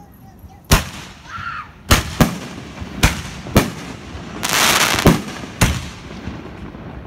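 Aerial fireworks bursting overhead: about seven sharp bangs in a ragged string over five seconds, with a short hissing rush midway through.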